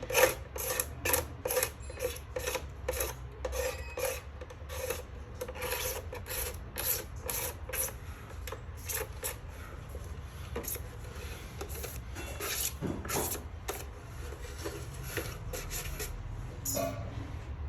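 Repeated rasping strokes, about two or three a second, like hand filing or scraping. They are regular at first, then sparser and fainter in the second half.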